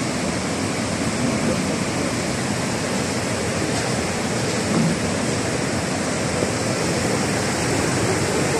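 Water rushing steadily down a cascade, an even unbroken rush with no let-up.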